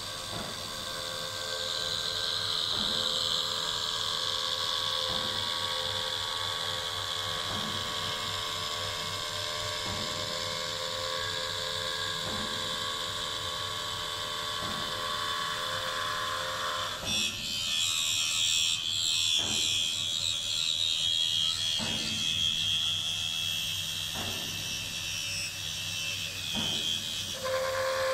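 High-speed spindle of a 5-axis CNC router (HS 655 head) running while it trims a carbon-fibre part, a steady whine with cutting hiss and a faint tap about every two and a half seconds. About two-thirds of the way through the sound turns hissier and brighter as the cut changes, then settles back near the end.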